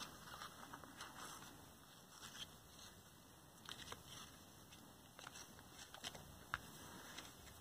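Near silence, with faint scattered soft clicks and rustles of hands handling yarn and a paper plate.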